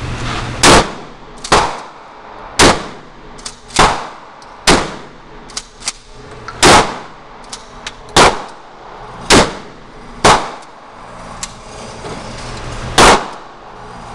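Gunshots: about ten loud shots fired at a steady pace, roughly one a second, with a few fainter shots in between.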